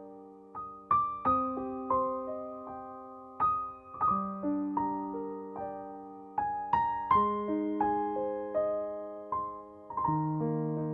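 Soft background piano music: slow, gentle chords and single notes, each struck and left to ring and fade.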